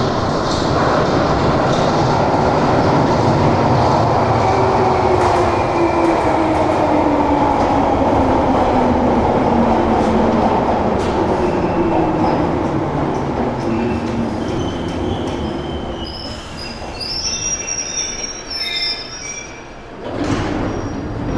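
Train running loudly and slowing, with a whine that falls steadily in pitch. The wheels and brakes then squeal in high tones as it comes to a stop, and a sudden loud rush of noise follows near the end.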